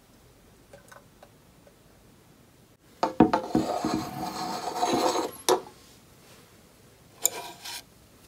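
Tabletop handling on a wooden table: a rasping rub of about two and a half seconds that ends in a sharp click, then a short scrape near the end as wooden chopsticks are lifted from a wooden plate.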